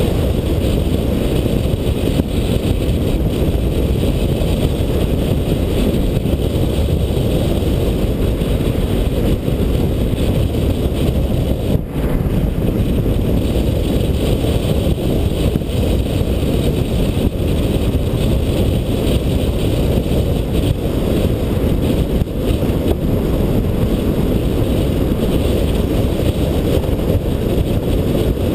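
Steady low rumble of a car driving along a road: tyre and wind noise with no distinct engine note.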